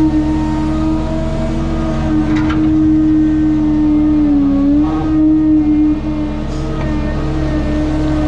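Heavy-equipment diesel engine running steadily at high revs, with a strong steady tone. The pitch dips briefly about four and a half seconds in, as the machine takes a load, then comes back up.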